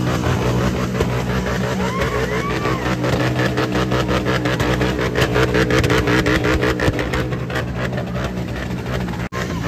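Motorcycle engine running and revving with a rapid, even pulsing, amid a noisy crowd.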